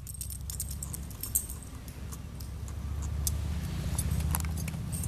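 Faint metallic jingling and clicking, like a small dog's collar tags as it runs, over a steady low rumble that grows a little louder about three seconds in.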